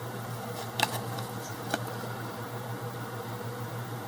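Light clicks of trading cards being handled, two in all about a second apart, over a steady low hum.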